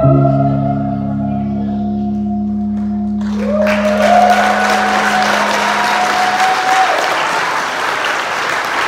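A band's final chord on electric guitars ringing out and slowly dying away, then audience applause breaking out about three seconds in, with a long whoop over it.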